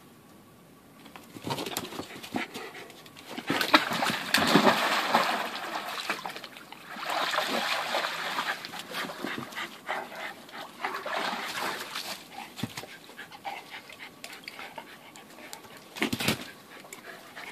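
A dog splashing about in shallow water in an inflatable paddling pool, in several bursts of a second or two each, with dog panting.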